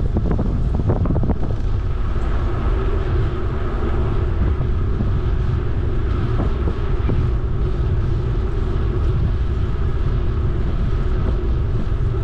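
Wind rushing over the microphone of a camera on a moving bicycle, with the steady rumble of tyres on the paved path. A few light knocks come in the first second or so.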